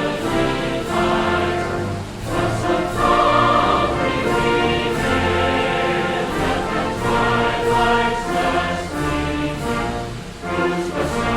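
Background music: a choir singing sustained chords over an orchestral backing.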